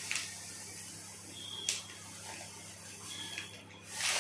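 Granulated sugar pouring from a plastic bag into a steel pot: a steady, high, hissing trickle of grains, with a few light clicks and a louder rush just before the end.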